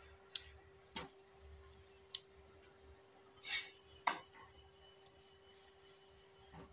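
Metal spatula clinking and scraping against a tawa as a paratha is lifted and pressed: a few sharp clinks about a second apart, and a longer scrape about three and a half seconds in, over a faint steady hum.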